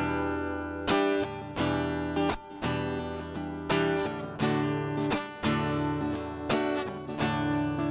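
Music: acoustic guitar strumming chords at a steady pace, an instrumental stretch with no singing.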